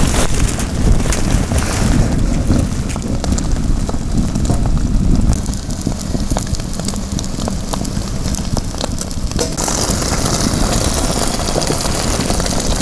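Beaten egg with chopped onion frying in hot oil in a metal frying pan, a steady sizzle full of small pops and crackles. Wind rumbles on the microphone underneath.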